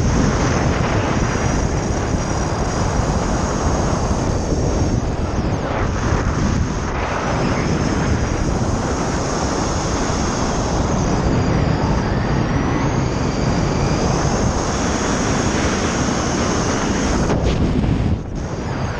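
Steady wind rushing over the microphone of a skydiver's helmet camera under an open parachute canopy, dipping briefly near the end.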